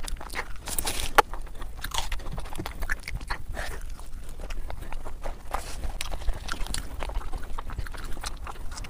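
A person chewing and biting meat in curry gravy, eaten by hand, with irregular wet mouth smacks and clicks.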